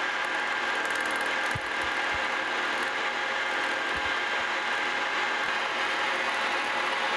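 Milling machine running steadily as its 1/4-inch end mill makes a final pass cutting a slot through a metal plate, with a few faint low thumps.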